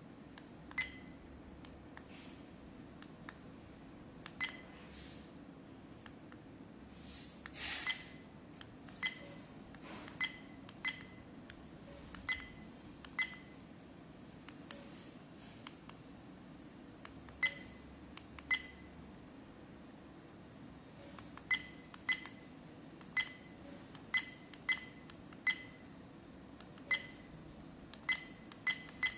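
Zimtop M700 dash cam's key-tone beeps: a short, high beep with a click each time one of its buttons is pressed. They come singly and irregularly at first, then in quicker runs of about two a second near the end. A short rustle of handling about a quarter of the way in.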